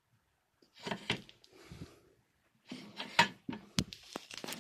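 Belt grinder's cam-over tension release lever and tension arm being worked by hand: two bursts of metal clacks and rattles with a few sharp knocks.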